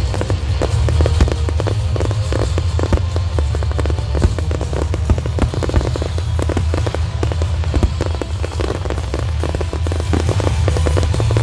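Fireworks finale: a dense, continuous barrage of rapid bangs and crackles, with a steady low rumble underneath.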